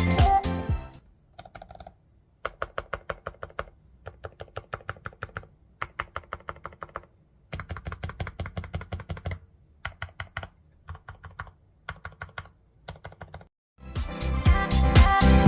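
Typing on a Groovestone GS85 keyboard with low-noise Hanui switches: quick keystrokes in runs of several a second, broken by short pauses. Background music fades out about a second in and comes back near the end.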